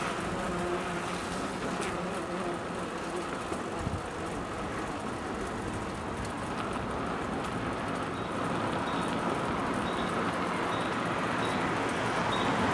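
Steady rumble of road traffic with a low hum, getting louder near the end.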